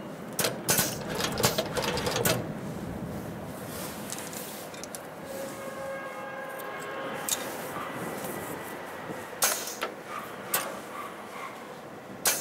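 Heavy-duty twin-needle sewing machine at rest, with scattered sharp clicks and knocks as the work is handled at it: fabric moved and threads snipped with scissors. Several clicks come in the first couple of seconds, then more widely spaced ones later.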